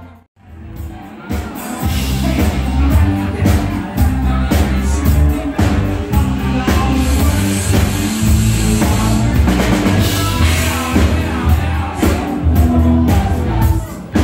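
Live band music played through a PA system: drum kit with a steady beat, strong bass and singing. The sound drops out briefly just after the start, then the music resumes.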